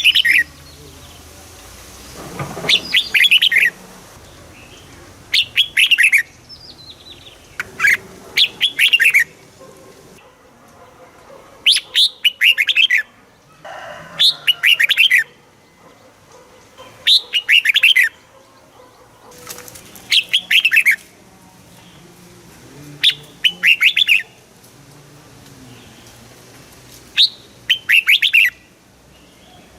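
Red-whiskered bulbul singing: short, bright phrases of quick notes, each about a second long, repeated every two to three seconds.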